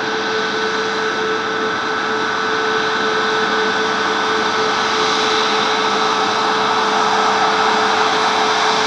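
Jet airliner engines running with a steady roar and a high whine, slowly growing louder.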